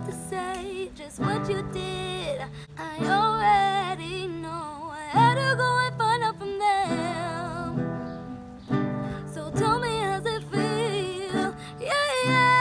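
A young female voice singing a slow pop melody with vibrato, accompanied by her own nylon-string classical guitar played in chords. The voice breaks off briefly between phrases while the guitar carries on.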